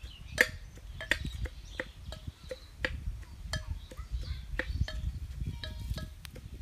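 Sharp metallic clinks, two or three a second at an uneven pace, each ringing briefly at the same pitch.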